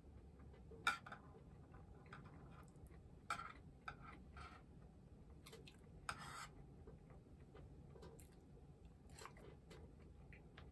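Chopsticks and tableware clicking during a meal: a handful of separate light clicks over near silence, the sharpest about a second in.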